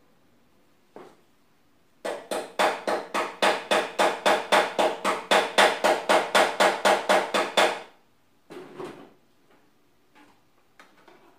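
Hammer striking the steel body panel of a Peugeot 504 in a fast, even run of over two dozen ringing blows, about five a second, lasting some six seconds. A couple of lighter knocks follow near the end.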